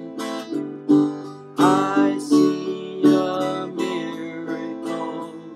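Acoustic guitar strummed in a slow, steady rhythm, a chord struck about every three-quarters of a second and left to ring, with no singing over it.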